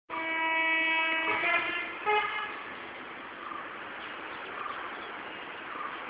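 Horn of a WAP4 electric locomotive sounding a long blast of about two seconds that changes tone partway through, then a short second blast, with a steady hiss after it.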